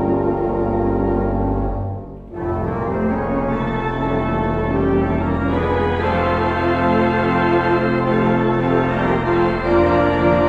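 Four-manual organ playing sustained chords over a held bass; the sound drops away briefly about two seconds in, a new chord enters, and it grows fuller from about six seconds.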